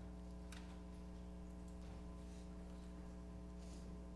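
Quiet pause filled by a steady low electrical hum, with a couple of faint soft knocks.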